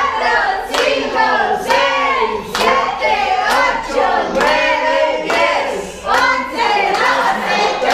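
A group of people singing a birthday song together, clapping in time at about one clap a second.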